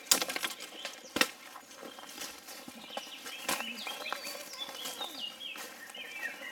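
Two sharp knocks about a second apart near the start, then a string of short, high chirping animal calls.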